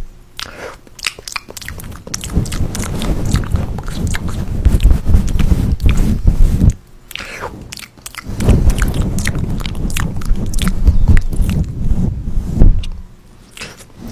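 Close, crunchy chewing and biting: a dense, irregular run of small crackles and crunches. It pauses briefly about halfway through and again near the end.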